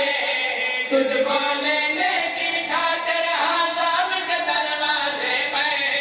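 A zakir's voice chanting verse in a drawn-out, melodic style through a microphone, the pitch rising and falling in held lines.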